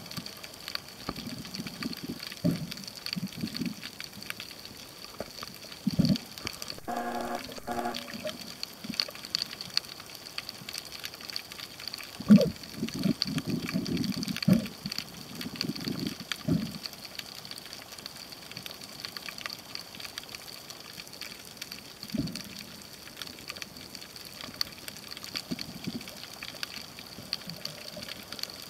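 Underwater sound at a snorkeler's camera: water sloshing and gurgling in irregular bursts, busiest in the middle, over a steady faint high tone. A short pitched hum comes about seven seconds in.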